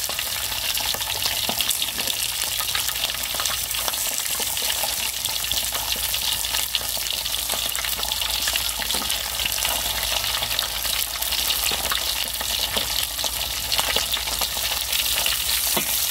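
Whole freshwater fish frying in shallow oil in a steel wok: a steady crackling sizzle, with light clicks and scrapes of metal tongs and a spatula as the fish are turned.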